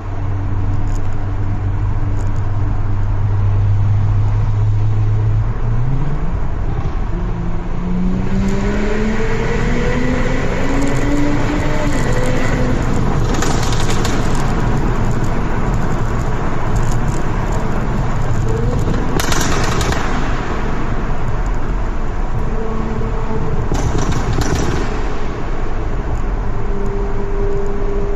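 Audi S5's tuned turbocharged V6, running through a Supersprint exhaust with a crackle map: steady at first, then rising in pitch as it accelerates for several seconds from about six seconds in, then running on with three short bursts of noise later on.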